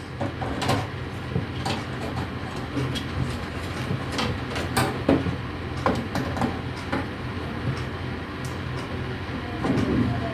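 Irregular clicks and knocks of plastic and metal as a Galax GT 730 graphics card is handled and pushed into the motherboard's PCIe slot, over a steady low hum.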